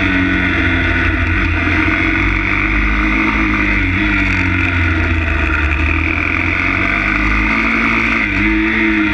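Single-cylinder four-stroke 160 cc pit bike engine under riding, its pitch rising and falling with brief sharp dips in revs about four seconds in and again near the end, over a steady low rumble of wind on the microphone.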